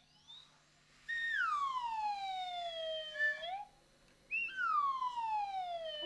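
Improvised music: a single high pitched tone sliding slowly downward in a long glissando, then a second downward slide after a short pause, each lasting about two seconds or more.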